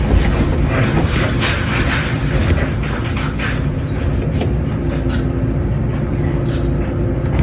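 Hydraulic excavator's diesel engine running steadily under load, with irregular crunching and knocking of broken concrete over it.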